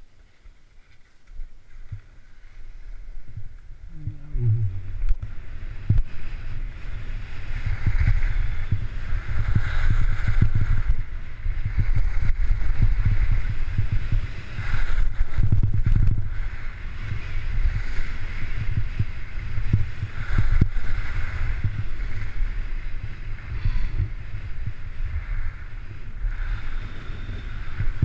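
Wind rumbling on a helmet-mounted action camera's microphone as the skier picks up speed downhill, with ski edges hissing and scraping on packed, groomed snow. The scraping swells with each slalom turn, about every two to three seconds.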